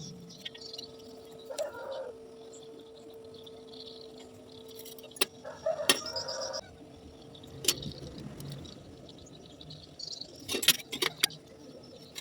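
Metal pieces knocking and clinking against each other in a few sharp taps, the busiest cluster coming near the end, over a faint steady hum.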